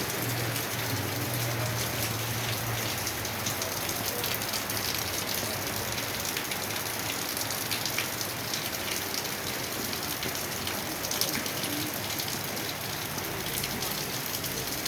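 Steady rain falling, with many small drop impacts ticking on hard surfaces. A faint low hum sits under it for the first three seconds.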